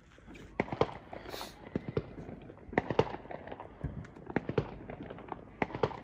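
Fireworks going off in quick, irregular pops and bangs, with a brief hiss about a second and a half in.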